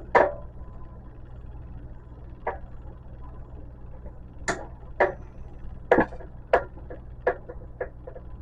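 Irregular sharp clicks and knocks, about a dozen in all, from tools and metal parts of a light fixture being handled during a teardown, over a low steady hum.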